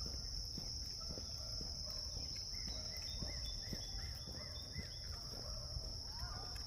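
Outdoor woodland chorus: a steady high-pitched insect drone, with birds chirping, including a run of about six repeated arched notes midway. Soft footsteps sound about every half second underneath.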